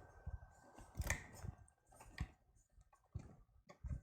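A few light, scattered clicks and taps of small parts and cables being handled on a workbench, about five in four seconds, with a faint steady high tone in the first two seconds.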